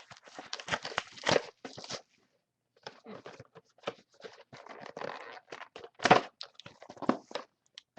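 A box of trading cards and its packs being handled by hand: irregular rustling, crinkling and taps of cardboard and wrappers, with a short pause about two seconds in and a sharper knock about six seconds in.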